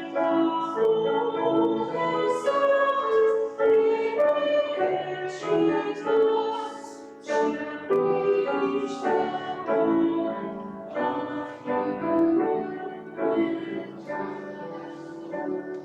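Singing with instrumental accompaniment in a church service, sustained sung notes that die away over the last few seconds as the piece ends.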